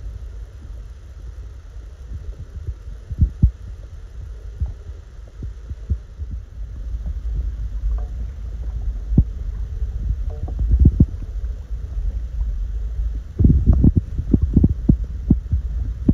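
Creaking and knocking from a waterproof phone case as it is handled, irregular and short, a few at first and then a quick run of them in the last few seconds, over a low steady rumble.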